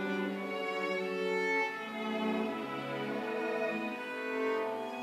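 Live string quartet (two violins, viola and cello) playing sustained bowed chords, the notes shifting slowly every second or so.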